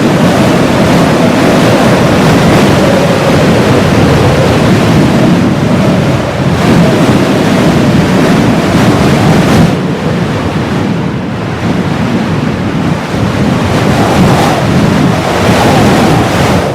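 Heavy blizzard wind blowing hard in gusts, a loud dense rushing that eases for a few seconds past the middle and then builds again.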